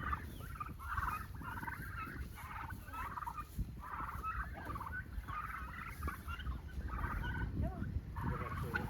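A flock of Broad Breasted White turkeys calling, many short overlapping calls following one after another.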